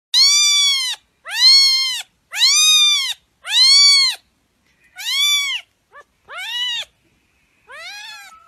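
White long-haired cat meowing repeatedly: about seven meows, each under a second long and rising then falling in pitch. Among the later meows there is a short chirp, and the last meow is fainter.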